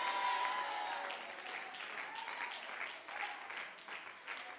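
Church congregation applauding, with a few faint voices in it, dying away over the few seconds.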